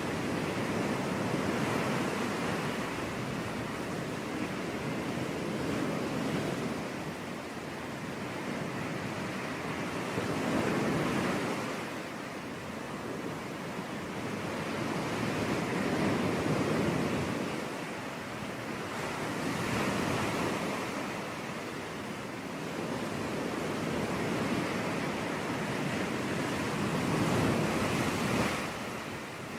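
Sea waves breaking and washing on a beach, the surf swelling and easing in slow cycles about every four to five seconds.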